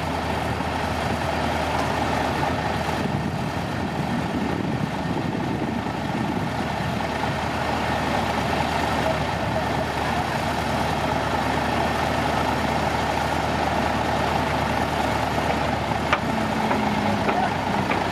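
Heavy construction machine's diesel engine running steadily, with a few faint clicks near the end.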